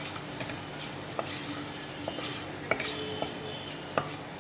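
Whole cumin seeds, a dried red chilli and a bay leaf sizzling in hot mustard oil in a wok, stirred with a wooden spatula that knocks lightly against the pan a few times.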